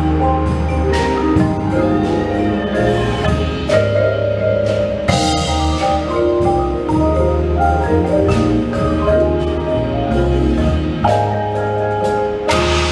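Indoor percussion ensemble's front ensemble playing a melodic passage on marimbas and vibraphones over long, sustained low bass notes, with a few sharp accents along the way.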